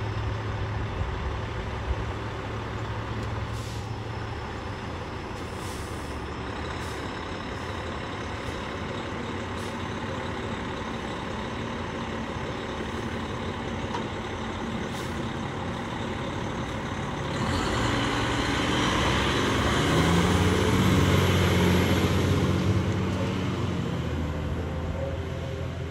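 Fire engine's diesel engine running in the station bay, with a few short hisses in the first ten seconds, then growing louder as the truck pulls out and drives off, loudest about 20 to 23 seconds in before easing.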